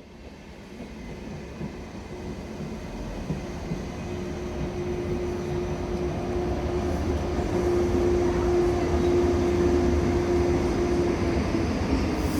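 Railway locomotive approaching, its running sound building steadily louder, with a steady droning tone from about four seconds in until near the end.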